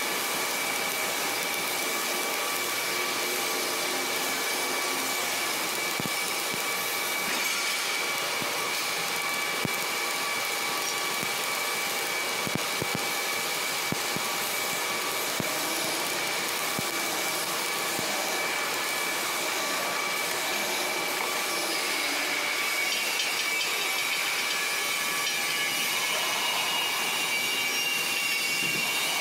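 Steady crackling hiss of a stick-welding arc on steel, with a few sharp crackles and a faint steady high-pitched machinery tone underneath.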